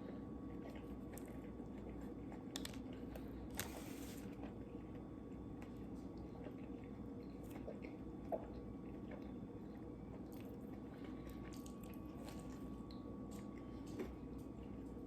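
Quiet chewing and biting into a Ghost Pepper Whopper: soft, squishy mouthfuls with faint crunching and small scattered clicks, and a brief rustle about four seconds in.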